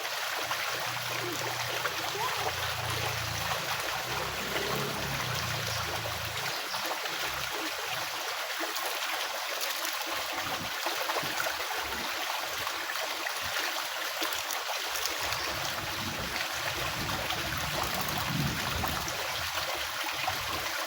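Stream water flowing steadily, a constant rushing trickle.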